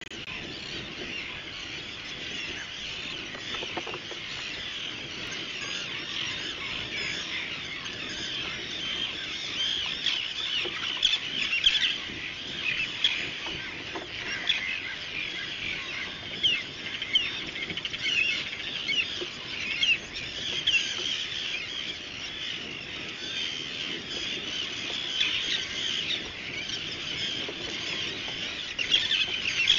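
A seabird colony calling: a dense chatter of many short, high calls overlapping one another, busier about a third of the way in and again near the end.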